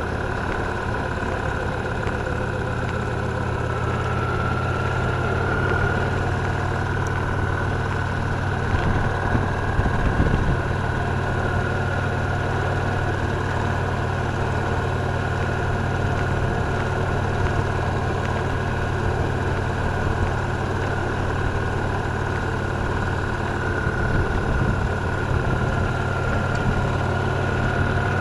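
Victory Cross Roads Classic LE's 1700 cc V-twin engine running steadily with an even low note, briefly louder about ten seconds in.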